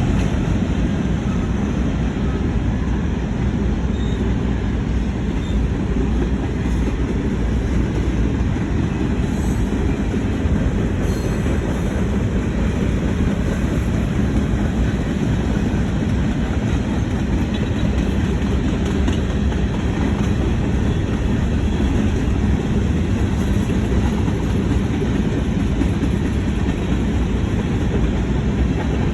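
CN freight train rolling past on the rails: a steady, loud rumble of wheels and cars that keeps up without a break.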